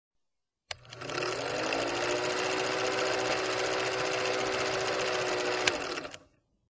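Old film projector running, a fast, even mechanical clatter with a faint steady hum. It starts with a click, has another sharp click about five seconds in, and cuts off suddenly just before the end.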